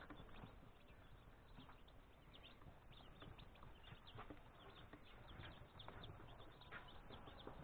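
Faint peeping of a brood of young chicks, many short falling cheeps overlapping several times a second.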